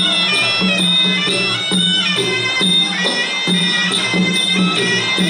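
Traditional Khmer boxing ringside music: a reedy sralai oboe plays a melody over a regular drum beat.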